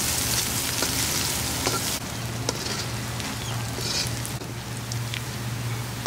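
Chopped onion sizzling in hot oil in a pan, loud for the first two seconds and then settling to a quieter sizzle, with a few light clicks.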